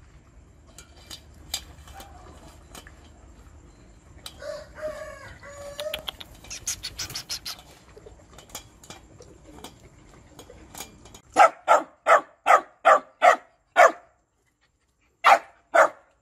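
A dog eating from a steel pot, with faint scattered clicks against the metal. About eleven seconds in, a quick run of seven sharp dog barks, then two more near the end.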